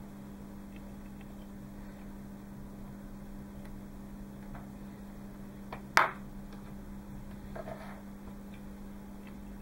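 Faint ticks and taps of a thin metal rod working a rubber chamber packing into a small brass ring, with one sharp click about six seconds in and a short scrape just under two seconds later. A steady low hum runs underneath.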